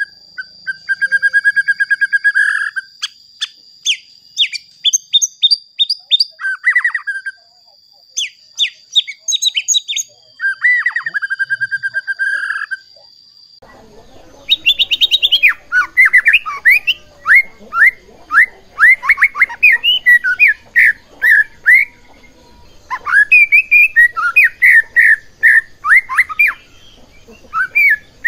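White-rumped shama singing loud, varied phrases of clear whistles and fast trills, over a steady high whine. About halfway in, the recording cuts to another shama singing rapid runs of sharp repeated notes.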